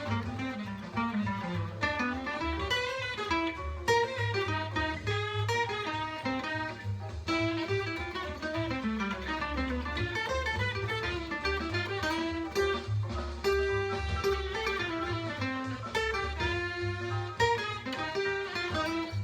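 A 1938 Epiphone Deluxe acoustic archtop guitar plays a fast single-note jazz line, a tenor saxophone solo transcribed for guitar. The notes come in quick runs that climb and fall, with steady low accompaniment underneath.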